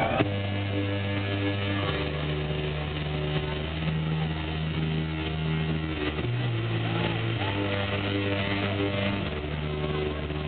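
Live amplified music: held low chords that change every one to two seconds, with faint voices over the top.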